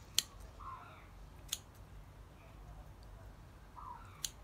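Three sharp clicks of a handheld kitchen tool worked on the food: one just after the start, one about a second later, and one near the end.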